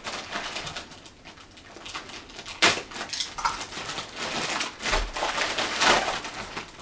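Plastic packaging bag crinkling and rustling as it is torn open and handled, with a few sharper crackles, the loudest about three seconds in and again near the end.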